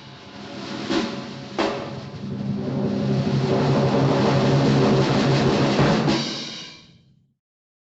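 Cartoon percussion sound effect: two sharp drum hits, then a sustained drum sound that swells up, holds, and dies away about seven seconds in.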